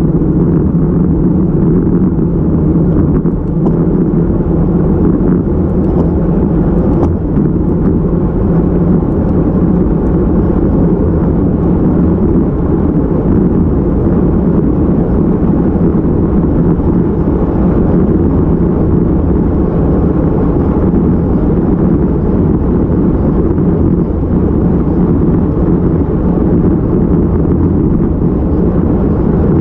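Wind buffeting a handlebar-mounted camera's microphone, mixed with tyre and road noise from a road bike riding at speed: a loud, steady low rumble.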